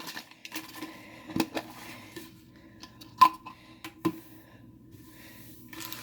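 Hard plastic clicks and taps with light rustling as a Mini Brands plastic capsule ball is handled and opened. One sharp click about three seconds in is the loudest, and another follows about a second later.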